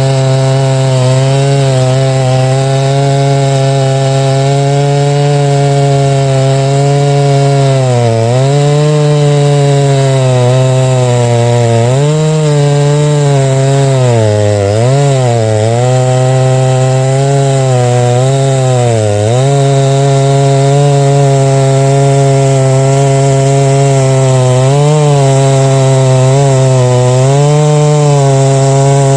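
Large two-stroke chainsaw running flat out under load while milling oak lengthwise. The engine note holds steady but sags and recovers briefly several times, around the middle and again near the end, as the chain is loaded in the cut.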